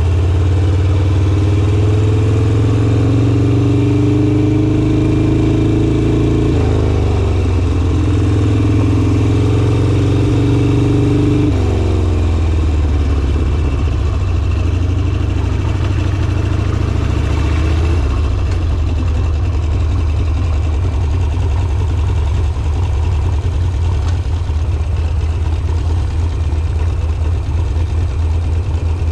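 Harley-Davidson Sportster's V-twin engine under way, its pitch rising as it pulls and then dropping sharply twice, about 7 and 12 seconds in. After about 18 seconds it settles to a low, lumpy, loping beat at low revs.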